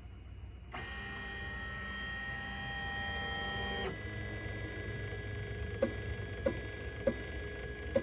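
Tina 2 3D printer's stepper motors whining as the print head moves over the bed laying down the first layer. The pitch shifts about four seconds in, and short chirps follow at the turns.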